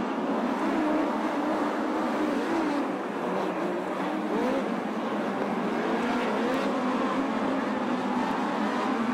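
Several open-wheel dirt-track race cars circling at pace speed, their engines running together with overlapping pitches that rise and fall as the cars pass.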